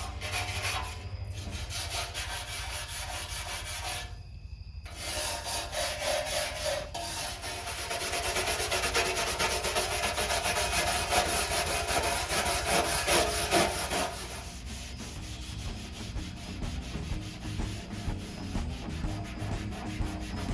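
Bare sheet-steel surface being scrubbed by hand, a steady rough rubbing with a brief break about four seconds in.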